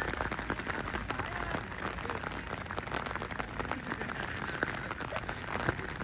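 Steady, noisy outdoor ambience full of small irregular ticks, with faint distant voices calling now and then.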